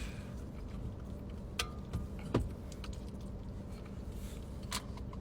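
Mouth sounds of someone chewing a burger: a few scattered short clicks and smacks, the loudest about two and a half seconds in, over a low steady hum.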